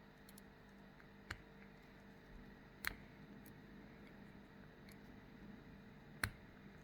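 Faint, sparse metallic clicks of a pick setting the pins of a SAG 5-pin stainless steel tubular padlock under light tension: three sharper clicks at about one, three and six seconds in, with a few fainter ticks between, over a low steady hum.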